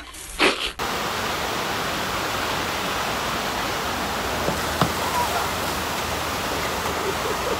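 A bidet jet sprays briefly into a toilet bowl, then gives way to the steady rush of water pumped over a stationary-wave surf simulator, with a couple of faint knocks around the middle.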